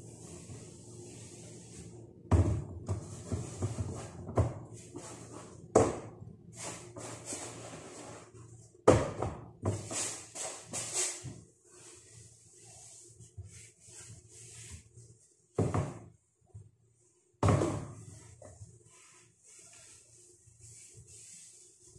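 Kitchen clatter as things are handled and set down on a countertop: scattered knocks and clunks, loudest about 9 to 11 seconds in, with a steady hiss between them.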